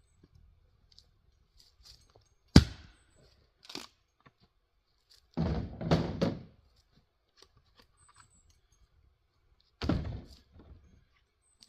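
A 3.5-pound Velvicut Jersey axe splitting firewood on a chopping block, with sharp thunks as it bites into the wood. The loudest strike comes about two and a half seconds in, a lighter knock follows a second later, and another strike lands near the end. Around six seconds there is a longer run of knocking and clatter.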